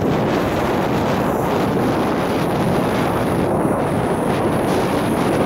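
Steady wind rush buffeting the microphone of a skater gliding fast over lake ice.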